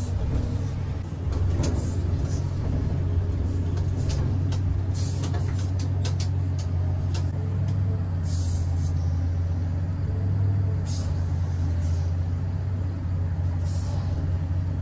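Komatsu PC3000 mining excavator working, heard from inside its cab: a steady low drone, with short hissing bursts every few seconds and a few sharp clicks a few seconds in.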